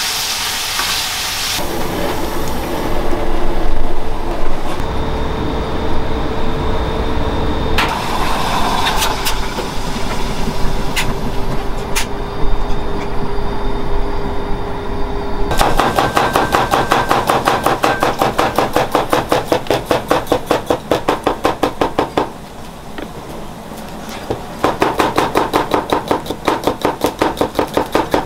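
Chef's knife slicing garlic on a cutting board in quick, even strokes, about five a second, in two runs through the second half. Earlier, food sizzles in a frying pan, followed by kitchen noise with a few sharp clicks.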